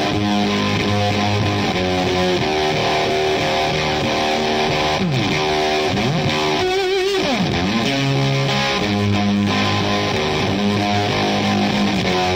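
Background rock music led by a distorted electric guitar, with sliding, wavering bent notes midway through.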